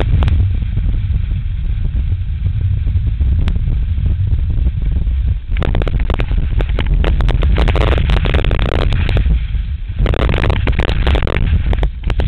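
Wind buffeting the microphone of an action camera strapped above a skier's knee, a heavy steady rumble. From about five and a half seconds in, skis scraping and hissing over hard-packed snow join it, easing briefly just before the ten-second mark and then returning.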